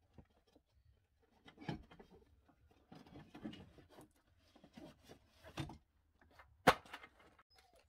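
Scattered handling noises: soft rustles and light knocks, with one sharp knock about two-thirds of the way through, the loudest sound.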